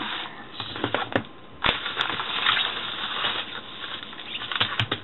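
Crinkling and rustling of packaging being handled and opened, broken by a series of sharp clicks, the loudest about a second and a half in.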